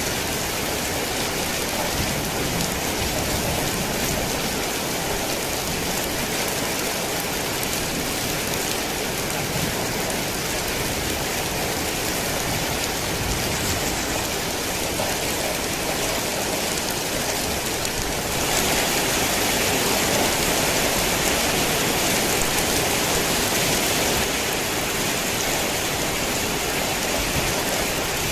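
Heavy rain falling steadily as a dense hiss of drops. It grows a little louder about two-thirds of the way through for several seconds, then eases back.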